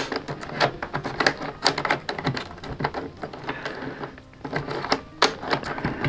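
Wooden puzzle box being worked by hand: a quick, irregular run of light clicks and clacks as its small wooden levers and pieces are swung and slid back and forth.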